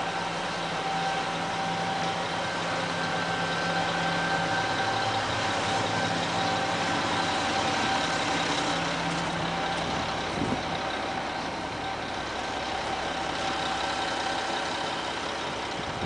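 Steady mechanical drone with a few held tones over a rushing background noise, like an engine idling.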